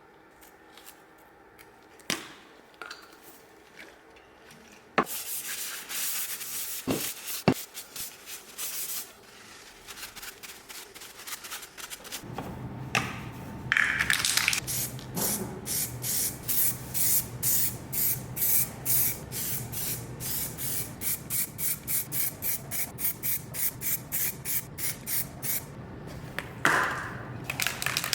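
Quiet handling clicks, then a short hiss, then repeated back-and-forth rubbing strokes on a part, about two a second, over a steady low hum.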